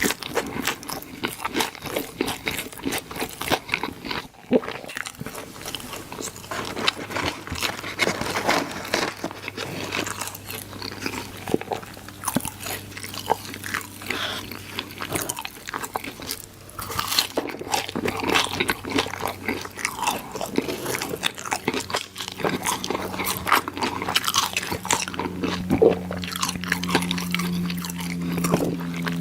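Close-miked eating: a person biting and chewing crunchy fast food, dense crackling crunches that keep on without a break.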